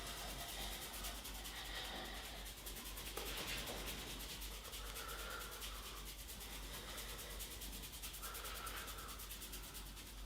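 A masseur's hands rubbing over skin and hair in a head massage, a continuous dry rubbing noise.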